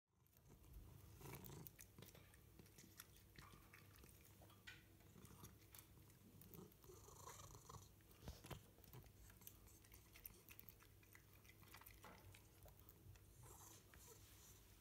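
A cat chewing and biting at a slice of bread at close range: quiet, irregular crunching and clicking, over a low steady hum.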